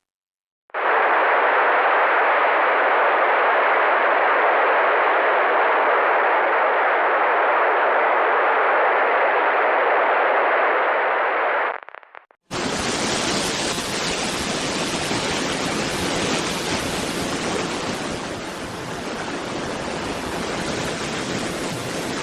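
Two stretches of steady static-like hiss. The first is a muffled midrange hiss lasting about eleven seconds; after a brief silence comes a brighter, full-range hiss lasting about ten seconds.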